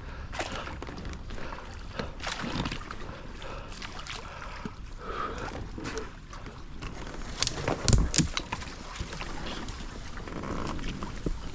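A single paddle working in the water, with irregular splashes and knocks against a small boat. A louder thud comes about eight seconds in.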